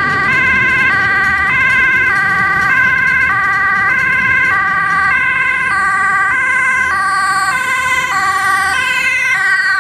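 Dutch ambulance's two-tone siren blaring, switching between a high and a low note about every 0.6 seconds as the ambulance approaches on an emergency run.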